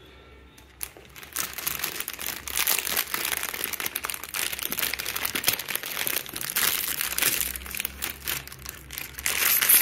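Clear plastic wrapping crinkling and rustling as it is pulled and peeled off a cake in a bowl, starting about a second in and getting louder near the end.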